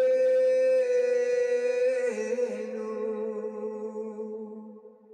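Shofar (ram's horn) sounding one long held blast. The note dips slightly in pitch with a short wobble about two seconds in, then fades out near the end.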